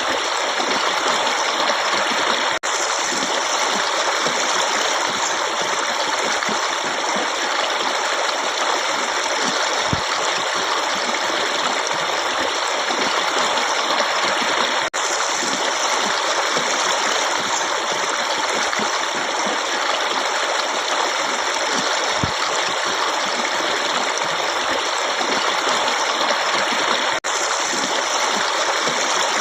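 Forest stream running steadily, a constant rush of water, broken by a brief dip in the sound three times, about every twelve seconds.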